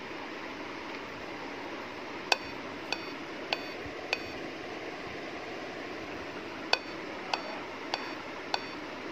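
Dell Inspiron laptop's boot beep code: short high beeps in groups of four, about 0.6 s apart, the group repeating after a pause of about two and a half seconds, over a steady hiss. The beeps signal that the laptop fails to start up.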